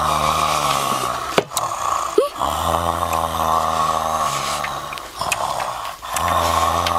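Drawn-out, low nasal hums from a boy eating chicken, several long ones in a row with short breaks, over a steady hiss.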